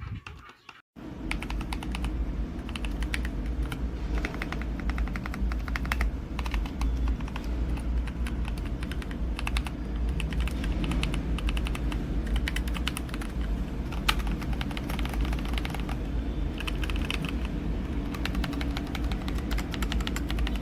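LANGTU S69 mechanical keyboard being typed on, starting about a second in: rapid, continuous key clicks, over a steady low rumble.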